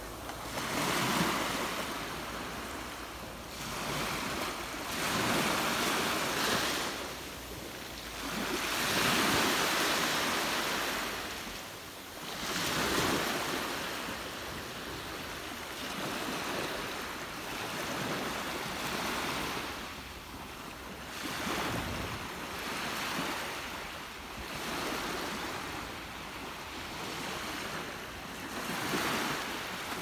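Small Black Sea waves breaking and washing up a sand-and-pebble beach. Each wash brings a swell of surf hiss, repeating every three to four seconds.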